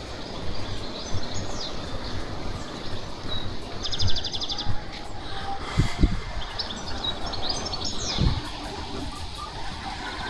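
Small songbirds singing and chirping, with a quick trill about four seconds in, over a constant low rumble of wind on the microphone and a couple of low thumps.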